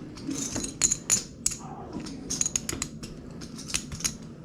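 Irregular runs of sharp clicks and clacks from poker chips and cards being handled at a card table.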